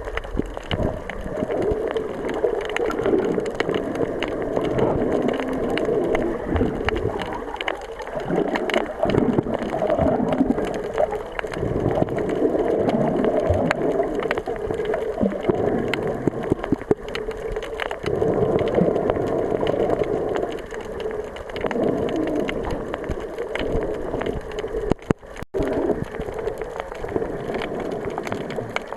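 Seawater washing along the shore: a steady rush of water scattered with many small clicks, with a brief drop about 25 seconds in.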